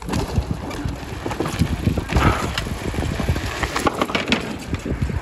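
Wind buffeting the microphone in an uneven low rumble, with scattered short clicks and knocks.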